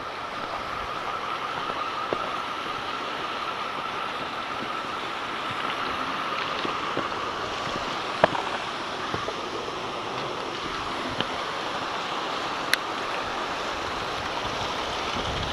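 Steady rush of flowing river water below a dam spillway, with a few sharp clicks.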